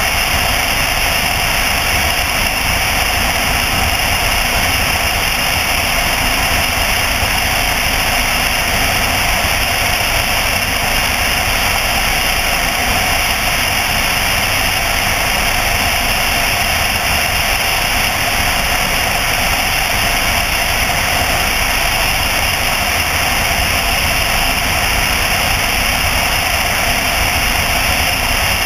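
Single-engine light aircraft's engine and propeller running steadily on final approach, mixed with rushing airflow over a camera mounted under the wing. A constant, unchanging noise.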